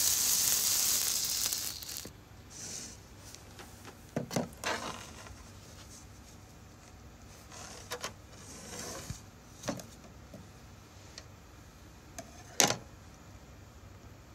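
A handheld cake sparkler fizzing with a loud, even hiss that ends suddenly about two seconds in. After that come a few scattered sharp clicks and knocks, the loudest near the end.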